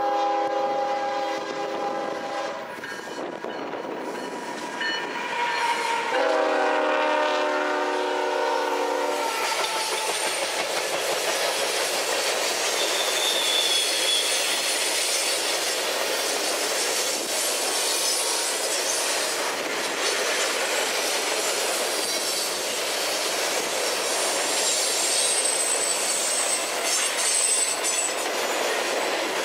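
Union Pacific diesel freight locomotive sounding its multi-chime air horn in two blasts, the second starting about six seconds in. Then the steady rumble and clatter of tank cars and covered hoppers rolling past on a curve, with thin high wheel squeals now and then.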